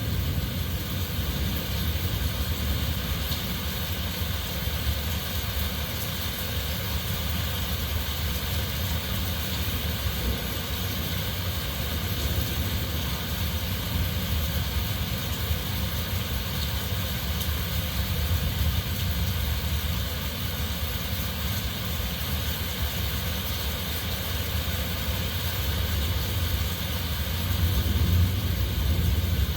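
Heavy rain falling steadily with wind, a constant hiss over a deep low rumble that swells a little near the end.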